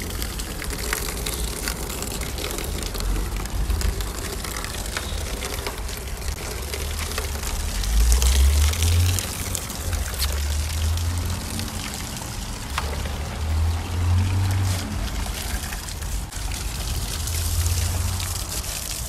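Water splashing and trickling in a plastic kiddie pool as a large long-haired dog stands in it, dipping its head into the water.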